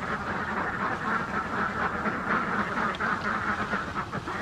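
A flock of domestic ducks quacking nonstop, many calls overlapping.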